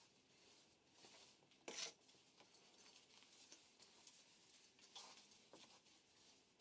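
Faint scraping of a long-handled flat-cutter drawn through loose soil and manure, in a few separate strokes; the clearest comes just before two seconds in.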